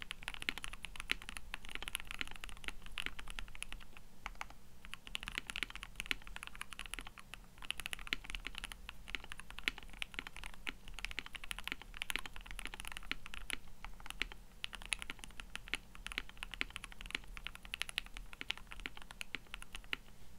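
Fast, continuous typing on a KBD67 Lite gasket-mount mechanical keyboard with a polycarbonate plate, lubed Everglide Water King linear switches and ePBT PBT keycaps: a dense stream of soft key clacks, with brief lulls a few seconds in.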